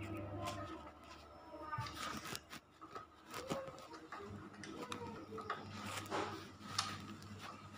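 Screwdriver working the terminal screws of miniature circuit breakers in a metal distribution panel: scattered small clicks and scrapes of metal on metal, over a low hum.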